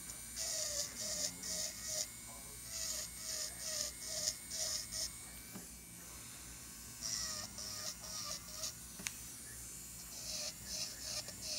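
Electric nail drill with a fine callus bit running with a steady whine, its bit grinding dead skin and cuticle beside a thumbnail in quick short strokes, about three a second. The strokes come in runs, with a pause of a couple of seconds midway.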